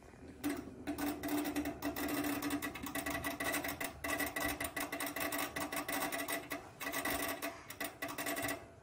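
Microwave oven running with a steady electrical buzz and fine rattle, switching on about half a second in and cutting off just before the end.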